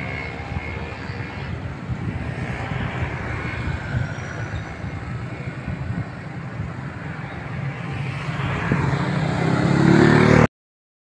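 Road traffic: motorcycles and a small truck driving past. A motorcycle engine grows louder as it passes close near the end, then the sound cuts off suddenly.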